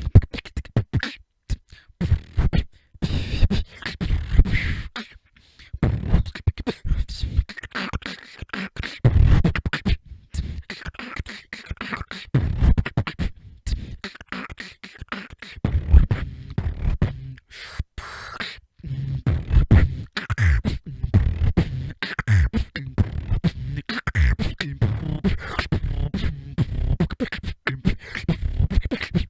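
Solo beatbox freestyle: one person's vocal percussion, with deep kick sounds and sharp clicks in a fast, shifting rhythm, broken by a few brief pauses.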